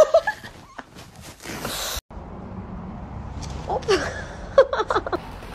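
A puppy whimpering in a few short, falling squeaks over a steady low hum. Before it comes a couple of seconds of rustling handling noise that stops abruptly.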